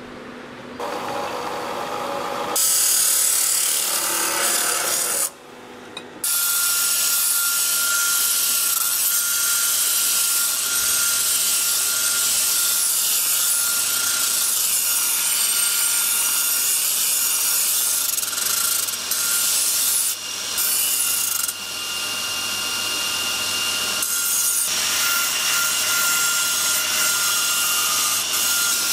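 Belt grinder grinding the edge of a steel plate: a loud, steady abrasive hiss with a faint, steady whine from the machine. It starts a second or two in, drops out briefly about five seconds in, and has a few short breaks later as the steel comes off the belt.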